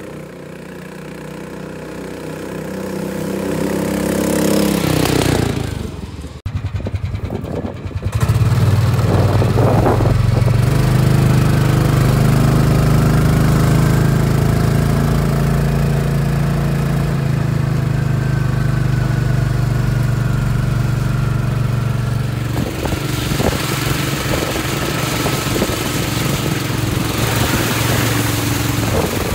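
301cc single-cylinder gasoline engine of a converted 1972 Taylor-Dunn utility cart with a CVT transmission. It grows louder over the first few seconds, breaks up briefly, then runs steadily under load as the cart drives over dirt.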